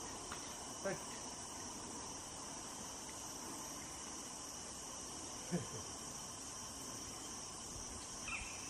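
Steady high-pitched insect chorus, with a brief faint falling sound about halfway through.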